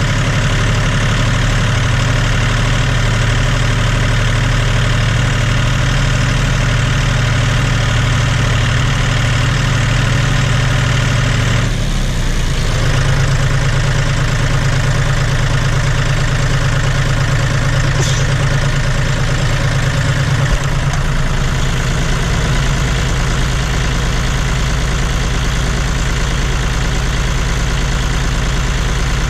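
John Deere 5205 tractor's three-cylinder diesel engine running steadily on its newly replaced Stanadyne injection pump, with a change in engine speed about twelve seconds in.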